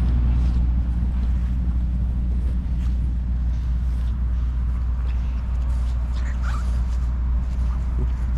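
Steady low hum of an idling diesel truck engine, with a dog whimpering briefly about six seconds in.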